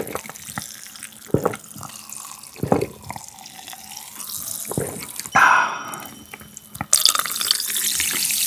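Several gulps of fizzy ginger ale with lemon over the faint crackle of carbonation, then a brief loud sound a little past five seconds in. From about seven seconds in, ginger ale is poured from the bottle into the glass, hissing and fizzing.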